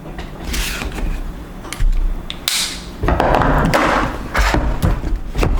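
A motherboard's cardboard box being opened and its packaging handled: swishing, scraping and rustling, with a few light knocks and thuds and a longer scrape about three seconds in.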